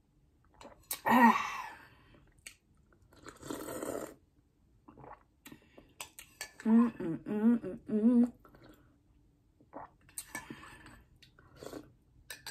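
A woman sipping and slurping from a spoon and mug, with a short three-part "mm-mm-mm" hum of enjoyment about seven seconds in and small clicks of the spoon.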